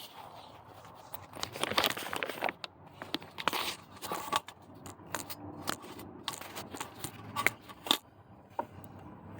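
Hand work on an engine: irregular clicks, taps and short scrapes and rustles of tools and parts being handled, loudest a couple of seconds in and again near the end.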